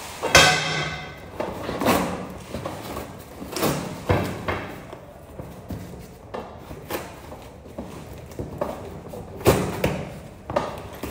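A package being handled and opened by hand: a series of knocks, thumps and scraping sounds, the loudest just after the start, more scattered through the rest.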